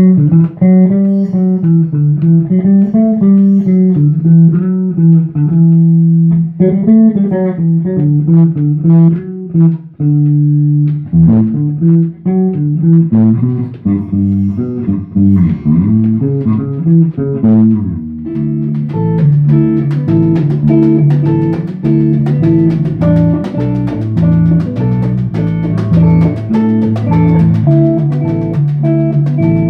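Band playing an instrumental introduction. A plucked guitar melody plays alone at first, a bass guitar joins about eleven seconds in, and drums and percussion come in around eighteen seconds, filling out a steady groove.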